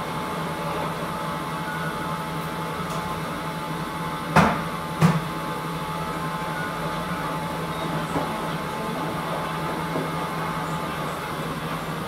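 Steady mechanical hum of coin-operated laundry machines running, with two sharp knocks about half a second apart near the middle.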